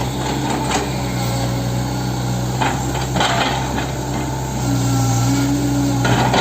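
Hitachi 110 excavator's diesel engine running steadily, with sharp metal clanks and knocks now and then. The engine note strengthens for about a second and a half near the end.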